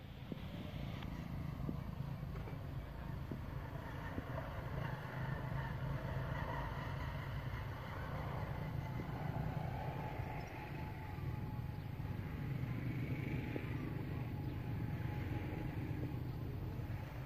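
An engine running steadily, heard as a low, even hum.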